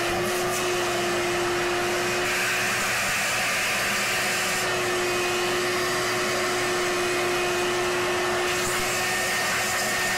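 Vacuum cleaner running steadily, its motor whine holding one pitch over a hiss of rushing air, as it sucks broken-off thread sealant out of the oil pressure fitting hole in an engine block.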